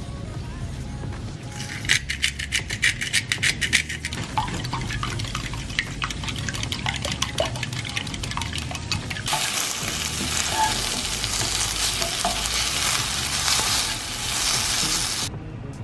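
A fork beating eggs in a ceramic bowl, a fast run of clinks against the bowl's side. From about nine seconds in, onions and spinach sizzle in a hot frying pan as a spatula stirs them, and the sizzle cuts off suddenly near the end.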